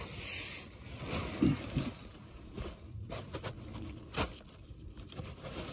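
Faint rustling and scraping with a few light clicks and knocks, the sounds of parts and tools being handled.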